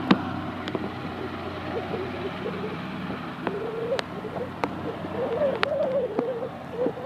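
Twin-engine business jet taxiing with its engines running: a steady rumble with a wavering hum, broken by a few sharp clicks.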